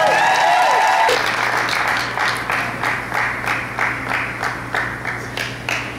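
Crowd cheering, then from about a second in the audience claps together in a steady rhythm, about three claps a second, over a low steady hum.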